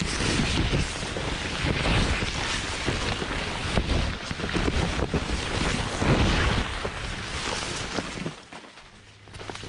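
Wind buffeting the microphone: a rushing, rumbling noise with scattered crackles that falls away about eight seconds in.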